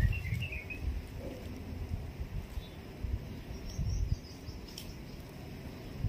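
A few quick bird chirps in the first half second, then faint high chirps about four seconds in, over low rumbling bumps and a steady outdoor background.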